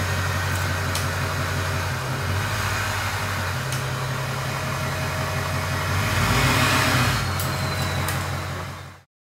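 6.0 Power Stroke V8 turbo-diesel running through its newly built exhaust, steady at first, then swelling louder about six seconds in as the revs come up. The sound cuts off abruptly near the end.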